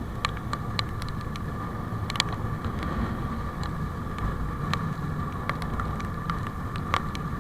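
An engine running steadily, with a steady whine over a low rumble and many short sharp clicks scattered through it.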